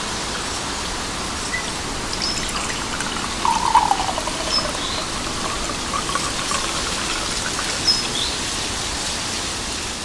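Liquid poured from a glass pitcher into a mug, a splashing trickle that starts about three seconds in, over a steady outdoor background hiss.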